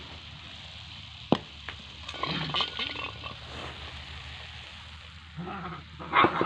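Metal spatula scraping and knocking against a steel pan as thick cooked coconut barfi mixture is scraped out into a plate: a sharp tap about a second in, then bouts of clattering scrapes, the loudest near the end.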